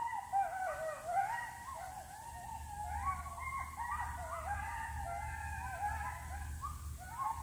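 A pack of coyotes going nuts: many high, wavering howls and yips overlapping in a chorus, rising and falling in pitch.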